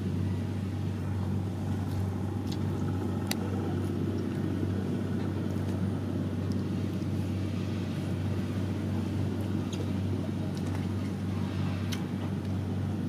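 Steady low rumble throughout, with a few faint clicks of a spoon against a plate, one about three seconds in and another near the end.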